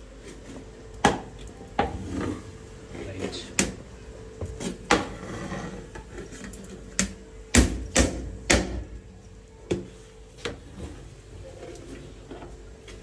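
Metal spoon knocking and scraping against a metal cooking pot while turning a pot of steaming cooked bagara rice, in irregular clinks and taps, the loudest few a little past halfway.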